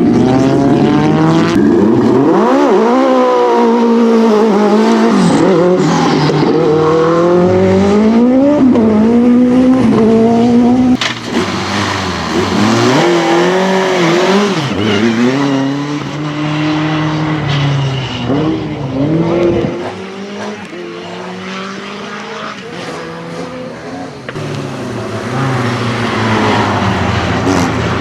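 Racing car engine at full throttle, its note climbing and dropping repeatedly as it revs up and shifts through the gears. About eleven seconds in the sound drops suddenly and the engine is heard quieter, still revving up and down, growing louder again near the end.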